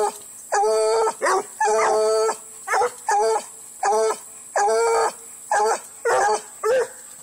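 Bluetick coonhound barking up into a tree. About ten loud barks come in a steady rhythm, each a clear pitched note. The first several are drawn out and the last few shorter, and they stop shortly before the end.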